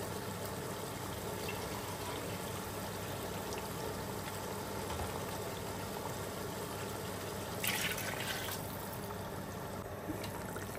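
Water with the browned mutton in a cooking pot, bubbling steadily as it heats to the boil for the rice, with a brief louder hiss about eight seconds in.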